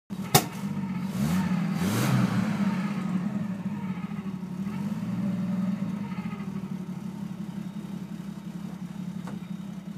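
Skidozer 252 snowcat engine running, with a sharp click just after the start. About a second in it revs up, then eases back to a steady run.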